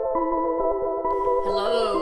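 Intro music: sustained synthesizer chords.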